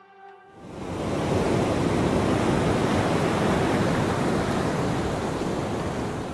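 Steady rushing of ocean surf with no distinct wave breaks, fading in over the first second and easing off near the end.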